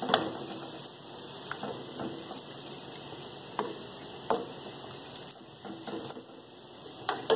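Beef stew with tomato and onion sizzling and crackling in a wide pan, its liquid heating toward a boil after a little water was added. The crackle is steady, with a few sharper pops or clicks scattered through it.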